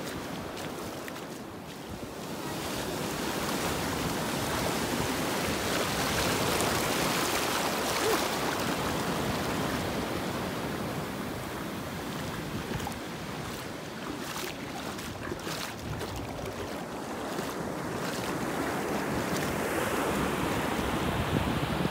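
Ocean surf: waves breaking offshore and foam washing up over the wet sand in the shallows, a continuous rushing hiss that swells and eases as the waves come in.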